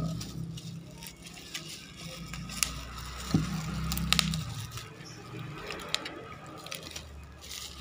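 Black plastic wrapping crinkling and rustling as hands handle and pull it open, with irregular sharp crackles and clicks.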